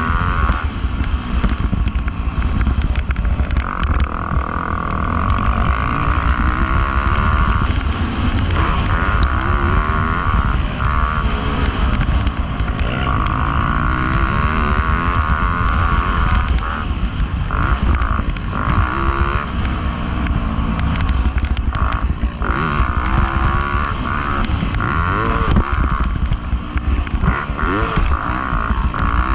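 Dirt bike engine being ridden hard, revving up and down over and over as the throttle opens and closes, over a steady low rumble.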